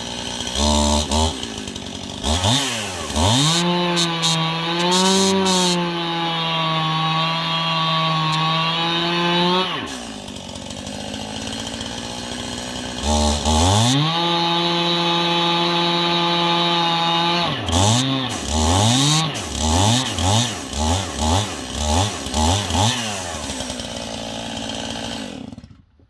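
Stihl two-stroke chainsaw bucking dead ash logs: it revs up and holds at full throttle through two long cuts, the pitch sagging and wavering under load, and falls back to idle between them. Then come a run of quick throttle blips before the saw stops abruptly near the end.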